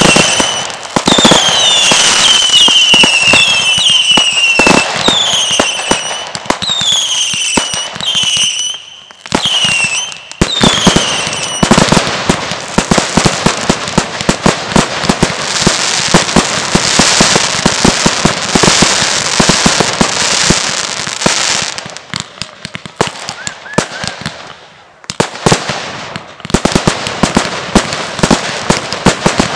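Fireworks display. For the first nine seconds, a run of descending whistles, about one or two a second, sounds over rapid bangs. Then comes a long dense stretch of crackling and popping bursts, which eases briefly a little after twenty seconds before fast bangs resume near the end.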